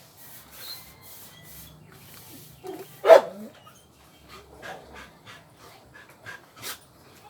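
A dog barks once, sharply, about three seconds in, just after a softer sound. Scattered light knocks and clicks come before and after it.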